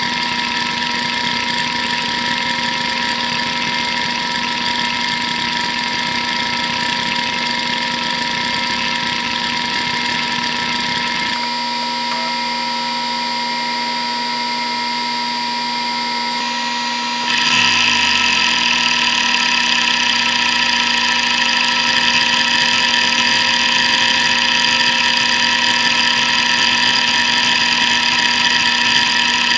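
Hitachi DK522C-10 hard drive spinning with a steady whine while its heads seek back and forth in continuous chatter. About 17 seconds in the seeking gets louder and busier as a seek-time test starts, with a buzz that falls in pitch over a few seconds.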